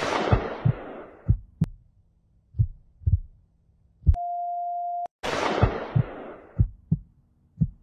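Edited-in sound effects over title cards: a bright crash that fades over about a second, low heartbeat-like thuds mostly in pairs, a steady beep about four seconds in lasting about a second, then a second fading crash.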